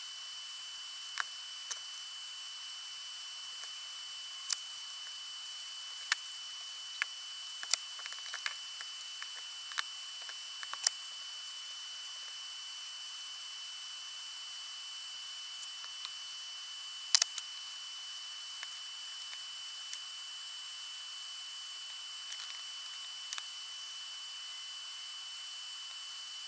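Steady hiss of recording noise with a thin high whine, broken by scattered sharp clicks at irregular intervals, the loudest about two-thirds of the way through.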